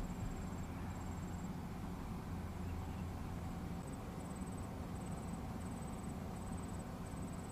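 Steady outdoor ambience by the water: a low rumble and hiss, with a faint high, thin insect trill that pulses on and off through the second half.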